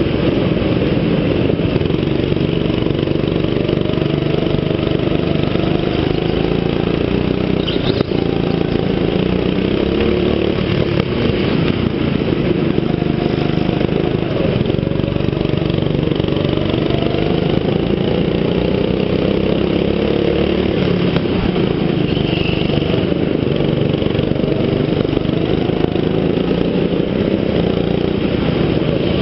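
Go-kart engine heard on board, running hard throughout, its pitch rising and falling over and over as the kart speeds up and slows for the corners.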